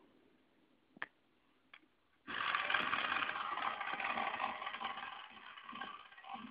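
Two light clicks, then a toy RC car's small electric drive motor and gears start suddenly with a loud whirring buzz that holds for about three seconds and fades near the end.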